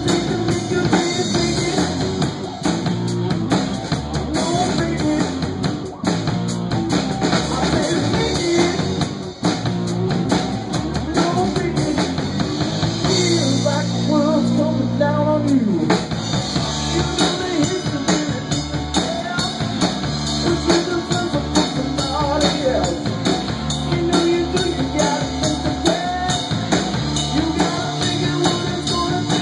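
Live rock band playing: electric guitar over bass and a drum kit. About midway the drums drop back for a few seconds while held guitar notes ring, then the full band comes back in.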